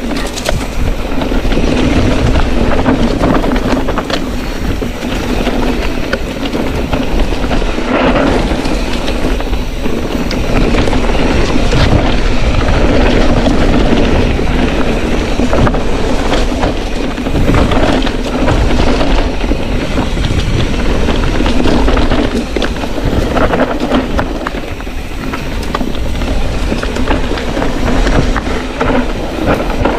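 Mountain bike rattling down a rough, rocky trail: continuous clatter and tyre noise with frequent sharp knocks as the wheels hit stones and roots.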